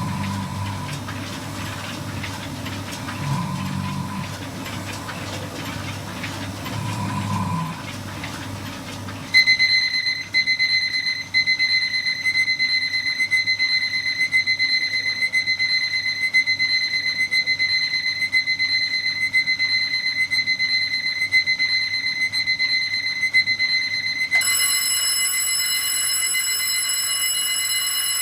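An alarm clock goes off about nine seconds in with a high, steady electronic tone that keeps ringing. Near the end a second alarm clock with a different, lower tone starts and rings along with it.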